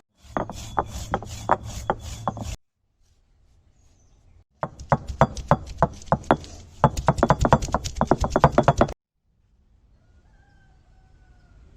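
Stone roller of an ammi (flat grinding stone) pounding roasted cumin seeds and garlic on the slab: a run of sharp knocks about three a second, then after a pause a longer, faster run of strikes.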